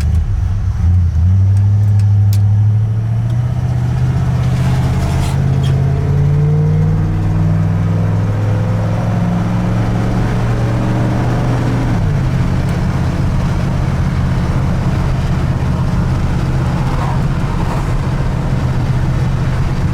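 A 1985 Ford F-150's carbureted engine pulls under way. Its revs climb slowly for about ten seconds, then drop suddenly about twelve seconds in, like an automatic transmission upshifting, and hold steady after. The truck's AOD automatic is one the owner believes is damaged.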